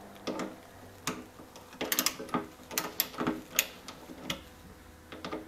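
Irregular light clicks and taps of a Torx bit and screws against the BMW i8's plastic trunk-lid pivot-and-spring housing as its two screws are fastened, a few of the clicks ringing briefly.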